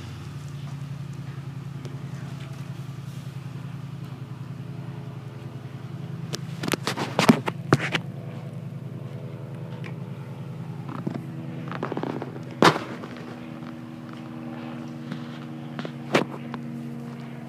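A vehicle engine idling with a steady low hum. Sharp knocks and clicks come in a cluster about a third of the way in and a few more times later.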